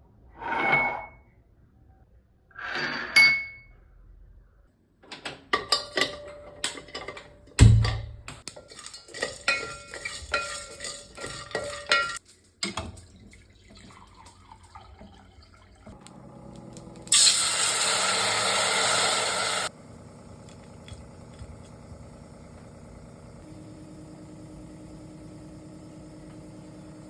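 Glassware and utensils clinking and knocking as a drink is mixed, with one heavier thud about eight seconds in. Past the middle comes the loudest sound, an even rush of liquid being poured or run for about two and a half seconds, which stops abruptly.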